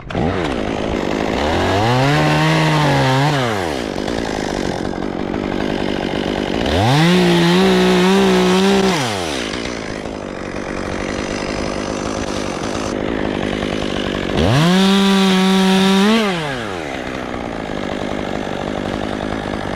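Two-stroke chainsaw revved to full throttle three times, each run lasting about two seconds, and running slower in between. The first run holds at a lower pitch than the other two.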